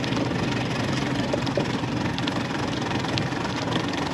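Mercury 150 hp four-stroke outboard engine idling steadily, running so that its newly fitted alternator charges the battery.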